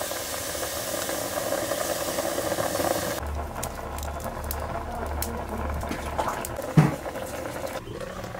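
Water bubbling and steaming in a clay pot under a steel lid over a wood fire, steaming the fish wrapped in gourd leaves. There are scattered light ticks, and a single loud knock comes near the end as the steel lid is handled.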